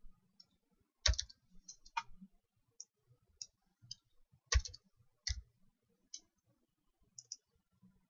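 Faint, irregular clicks of a computer keyboard and mouse as a value is typed in: a few louder clicks among lighter ticks.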